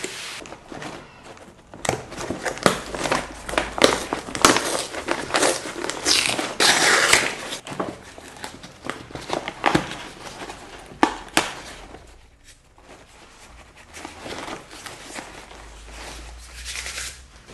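Rustling and crinkling of vacuum bag material being handled, with scattered sharp clicks and knocks.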